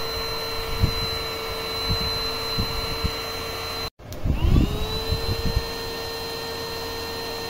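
Handheld cordless vacuum cleaner running with a steady high-pitched whine. About four seconds in it breaks off briefly and starts again, its whine rising quickly up to speed, with a few low bumps from handling.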